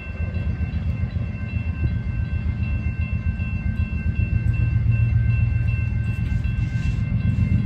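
CSX freight train's diesel locomotives approaching, a heavy low rumble that grows louder, with a thin steady high-pitched whine over it.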